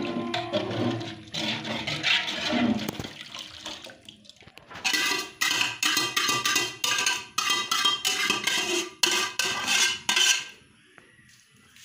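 Water sloshing as a spoon stirs it into the spiced masala base in a large metal pot; from about five seconds in the metal spoon knocks and scrapes against the pot in quick repeated strokes, each ringing briefly.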